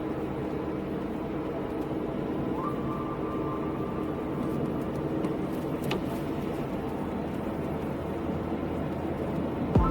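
Car driving on a rain-wet road: steady engine and road noise, with one click near the middle.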